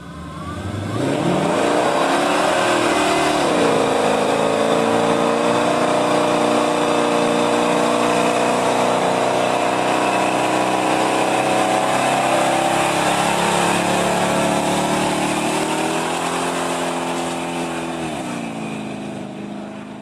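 1960s Ford Mustang's engine revving through a burnout, the rear tyres spinning: the revs climb over the first couple of seconds, hold high and steady for about fifteen seconds, then fall away near the end.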